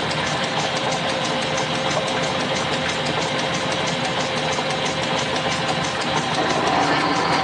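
Drill press running, its twist drill boring down into a metal block held in a vise. Steady machine noise with a fast, even ticking.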